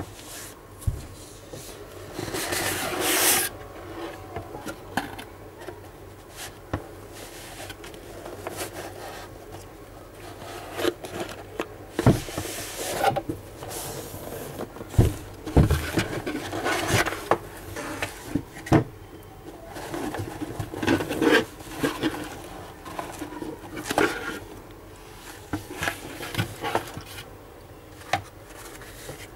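Cardboard retail packaging handled and opened by hand: rubbing and scraping of the box and its insert, with scattered taps and knocks. A longer, louder rub comes about three seconds in.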